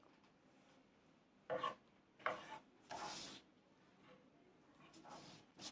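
Kitchen knife drawn through raw salmon against a cutting board: three short scraping strokes in quick succession, then a fainter one near the end.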